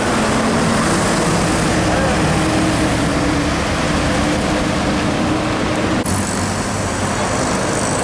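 Road traffic passing close: a large coach bus's diesel engine running and its tyres on the road, followed by other trucks and vans. The sound changes abruptly about six seconds in.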